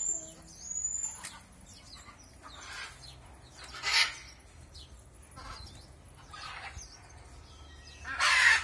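A bird squawking harshly, about six rasping calls a second or two apart, the loudest about four seconds in and near the end, with a few short high chirps in the first second.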